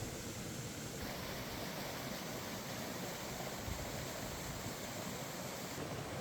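Mountain stream flowing: a steady rush of water.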